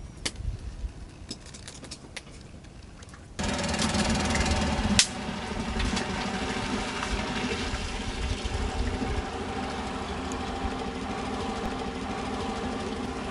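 A small boat's engine running steadily, starting abruptly about three seconds in after a few light clicks.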